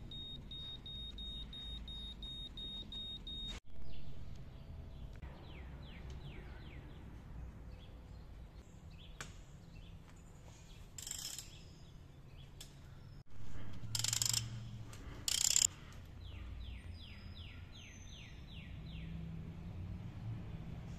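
An ANPUDS digital torque adapter gives a steady high beep, pulsing slightly, for the first few seconds as its torque setting is keyed in. Two runs of quick ratchet clicks follow as a plug on the rear differential is worked, with a couple of short rasping bursts between them.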